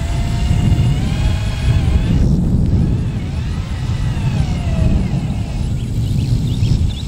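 Power drill driving screws into metal roof panels: its motor whines in two runs, the second rising then falling in pitch as it speeds up and winds down. A steady low rumble runs underneath.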